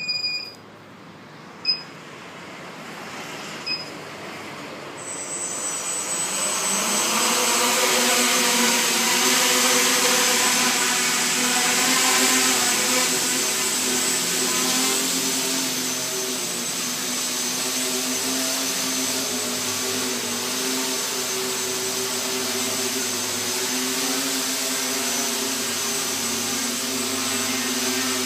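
SK450 quadcopter's brushless motors and propellers: a few short beeps in the first seconds, then the motors spool up over several seconds into a steady hum with a high whine as the quad lifts off and hovers.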